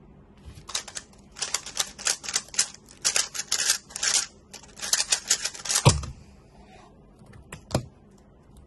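Rapid, dense clicking of a Moretry Tianma X3 triple-magnetic 3x3 speedcube being turned in a fast solve. The turning stops about six seconds in with a loud thump, and two light taps follow near the end.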